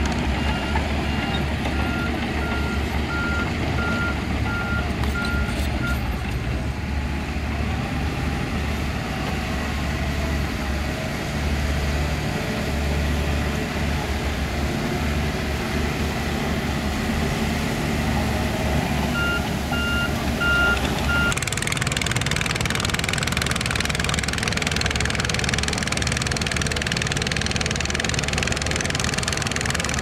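Diesel engine of heavy earthmoving machinery running, with a reversing alarm beeping steadily for the first several seconds and again briefly past the middle. A little over two-thirds through, the engine sound changes abruptly to a harsher, noisier one.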